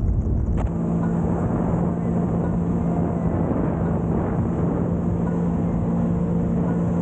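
Sea-Doo personal watercraft running at a steady cruising speed, its engine holding one even tone under the rush of water spray and wind.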